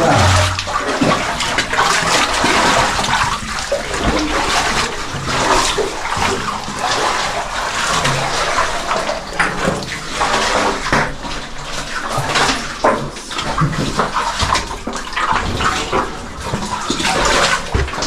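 Water sloshing and splashing continuously, with irregular surges, as a caver wades and crawls through a flooded cave passage.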